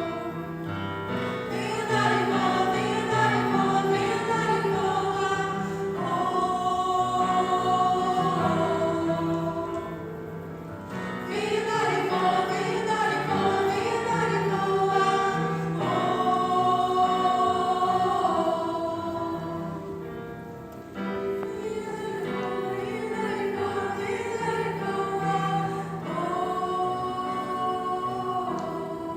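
Choir singing, with sustained notes in long phrases that breathe in and out.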